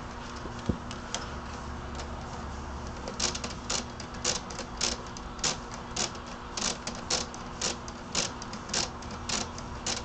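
Lego Technic tow truck's plastic gear mechanism clicking as it is worked. After about three seconds the clicks come in a regular run of roughly two a second, over a steady low hum.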